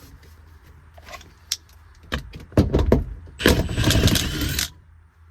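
Metal seat belt buckle and anchor hardware clinking and knocking as a lap belt is worked into place. Past the middle there is a cluster of loud knocks, then a louder scraping burst lasting about a second.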